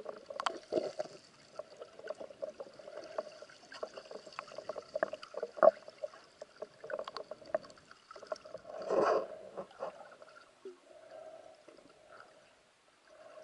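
Underwater sound picked up by a camera during a river dive: scattered clicks and knocks over a steady hum, with a louder rush of noise about nine seconds in.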